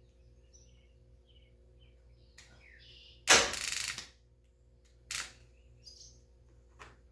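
Newly mounted starter tried by jumping its solenoid on a battery: a loud sudden burst lasting under a second, a shorter one about two seconds later and a faint click near the end, without the engine turning over. The owner puts the failure down to a loose connection or a bad battery. Birds chirp faintly in the background.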